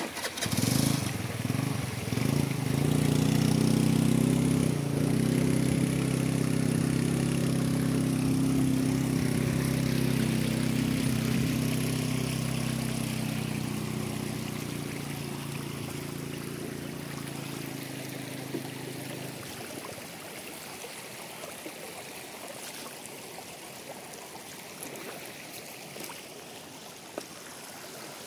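Motor scooter's small engine running at steady high revs as it is ridden through a shallow rocky stream, where the scooter gets stuck midway. The engine sound fades and stops at about twenty seconds in, leaving the trickle of the shallow stream over stones.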